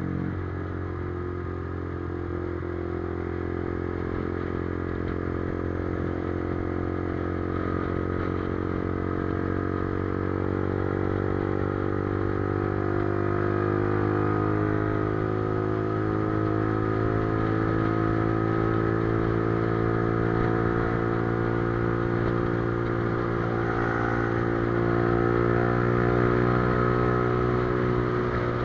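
Motorcycle engine running continuously under way, its pitch and loudness creeping slowly upward as it gathers speed.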